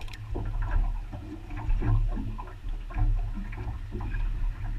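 Low, steady rumble of wind and water around a small boat, with scattered soft clicks and crunches from scissors and hands working a crayfish tail's shell.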